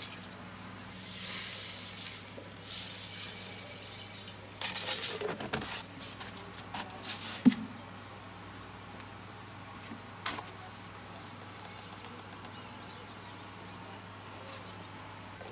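Small wood fire hissing and crackling under an aluminium cooking pot, with a few sharp knocks and clinks of metal kitchenware, the loudest about halfway through.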